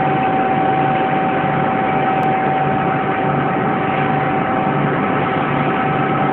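Steady machine hum, a motor or engine running continuously, with one constant whine and a low throb that pulses slowly.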